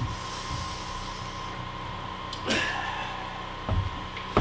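Footsteps thudding on a plywood subfloor and a short scrape as a man moves around a framed wall. Under them runs a steady low hum with a faint steady tone. Two thumps come near the end, the last one sharp.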